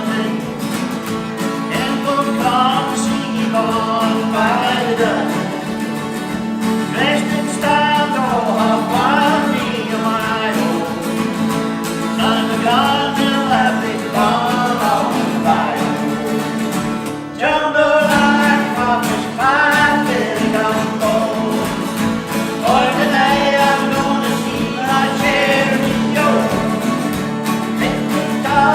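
Folk-country background music: a strummed acoustic guitar under a lead melody line, with a brief drop in the music about two-thirds of the way through.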